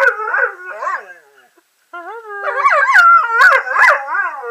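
German Shorthaired Pointer howling in a wavering 'talking' howl, its pitch sliding up and down. A short run stops about a second in, then after a brief pause a longer run follows.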